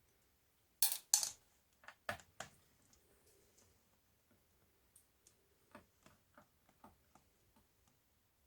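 Sharp clicks and taps from hands working on a Dell Latitude 3380 laptop: two loud clicks about a second in, a few more around two seconds, then a run of lighter ticks between about five and seven and a half seconds.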